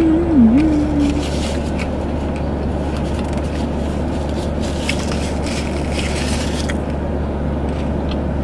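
Steady low hum and rush of air inside a car's cabin, with a few faint small clicks. A woman's voice holds a couple of pitched notes in the first second.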